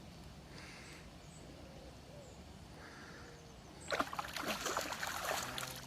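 A hooked carp splashing and thrashing at the water's surface for about two seconds near the end, after several seconds of low steady background noise; the fish is still fighting close to the landing net.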